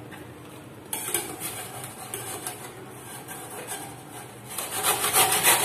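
Cabbage being grated on a stainless-steel hand grater: repeated rasping strokes start about a second in and grow louder near the end.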